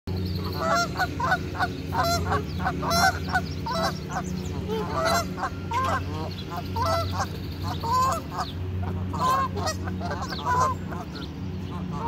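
A flock of Canada geese honking, many short calls in quick succession and overlapping, over a steady low hum.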